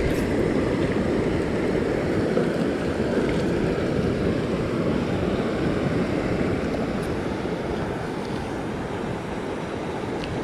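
Steady rushing of creek water running over rocks, easing a little near the end.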